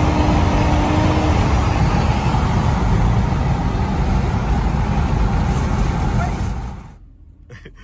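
Audi S5 driven at highway speed, heard from inside the cabin as loud, steady engine, road and wind noise that drops away sharply near the end.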